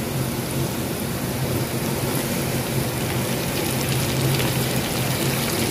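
Flour-coated oyster mushrooms deep-frying in very hot oil, a steady, even crackling sizzle.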